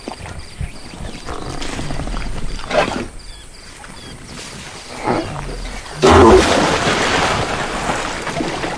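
An animal giving rough, noisy calls. The loudest and longest starts about six seconds in and fades away toward the end.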